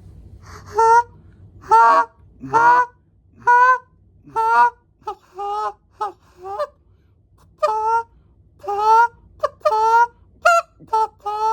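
Molt Gear Go 2 Delrin goose call blown in a run of goose honks and short clucks, about fifteen notes with short gaps between them. Blown with only a little air, yet pretty loud.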